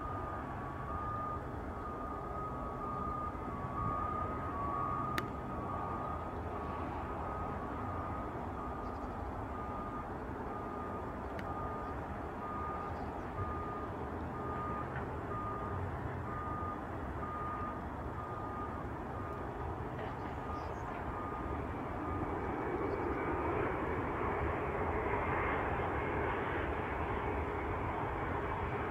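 Boeing 787 Dreamliner's jet engines on final approach, a steady rumble that grows louder over the last several seconds as the airliner nears the runway. A faint, evenly repeating beep sounds through the first two-thirds.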